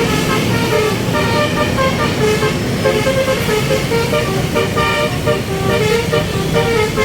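Indonesian bus's 'telolet' basuri musical horn, several horn tones sounding together, playing a tune of short notes that keep changing pitch. Engine and road noise run underneath.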